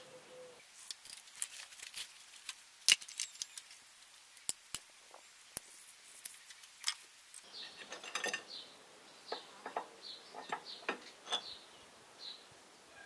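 Steel hand tools, a socket wrench and an open spanner, clinking and clicking on the injector hold-down nuts of a Perkins diesel engine. The clicks are sharp and irregular, the loudest about three seconds in.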